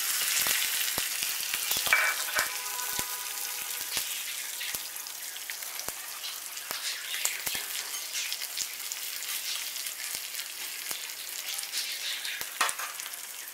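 Chopped green chillies frying in hot oil with cumin seeds in a steel tempering ladle, a steady sizzle full of small crackles. It is loudest just after they go in, then settles as the chillies soften.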